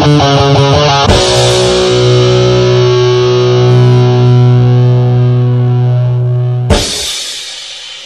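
Ending of a Punk-O-Matic punk rock track. Distorted electric guitar plays quick descending notes, then one chord is held and rings for several seconds. A final loud hit comes near the end, and the sound fades away.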